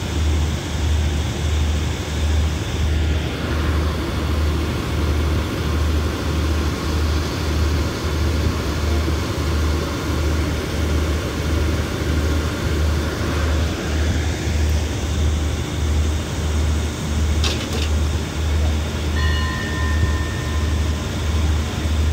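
The diesel engine of a stationary passenger express train idling, a steady low throb that pulses about one and a half times a second. Near the end there is a click, then short high-pitched tones.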